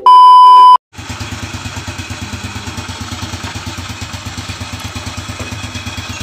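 A loud, steady beep tone for under a second, then a Yamaha Nouvo scooter's single-cylinder engine idling with a regular pulsing beat.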